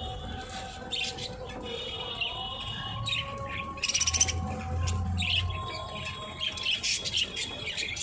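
A flock of budgerigars chirping and warbling busily together, with short sharp calls over a running chatter.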